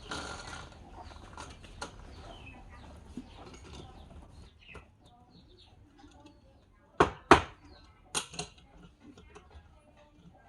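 Light clattering and scattered knocks, with two loud sharp knocks close together about seven seconds in and two smaller ones a second later.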